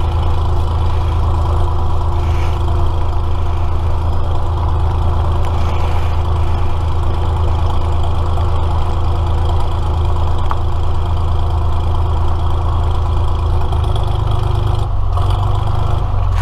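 Single-engine light aircraft's piston engine and propeller running at low power as the plane rolls along a grass strip after landing, heard as a steady low drone inside the cabin. The tone of the drone shifts near the end.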